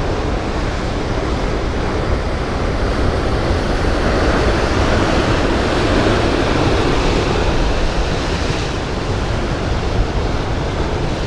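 Ocean surf breaking and washing over rocks below a sea cliff, swelling louder around the middle as a wave comes in, with wind rumbling on the microphone.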